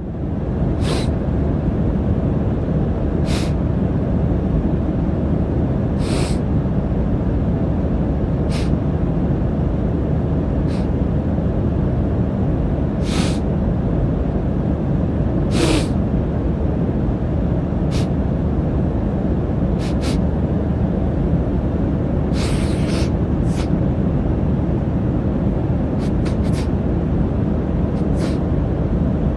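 A sick man sniffling over and over, short sharp sniffs every two to three seconds, over the steady drone of an airliner cabin.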